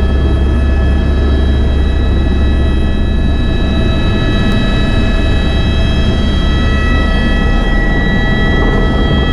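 Helicopter turbine and rotor running steadily, heard from inside the cabin: a loud low drone with a constant high-pitched turbine whine over it.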